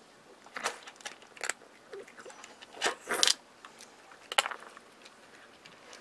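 A cat eating dry kibble from a plastic bowl: a handful of separate crunches and sharp clicks, the loudest cluster about three seconds in.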